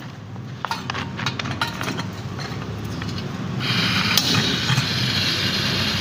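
A spark gas lighter clicks several times at a small LPG cylinder stove's burner, then the gas catches a little past halfway and the burner flame runs with a steady hiss.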